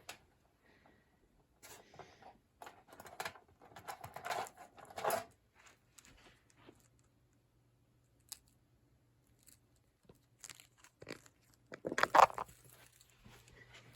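Handling noise: irregular clicks, rustling and crunching, in clusters about four to five seconds in and again near twelve seconds, over a faint steady low hum.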